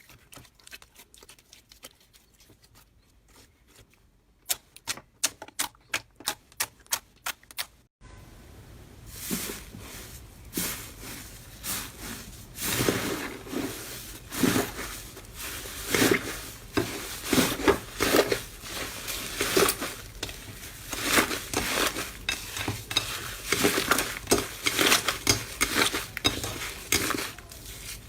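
Slime being handled by hand, making sharp sticky clicks, a regular run of them at about two or three a second. After a sudden change about eight seconds in, louder, denser squelching and crackling pops follow.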